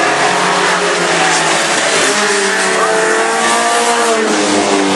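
Several racing mini pickup trucks' engines running together on a dirt oval, their pitches rising and falling as they accelerate and lift.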